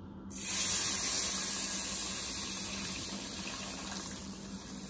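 Hot saffron water poured into rava roasted in hot ghee, hissing and sizzling as it hits. The sizzle starts suddenly just after the start, is loudest about a second in, then slowly dies down as the mixture bubbles.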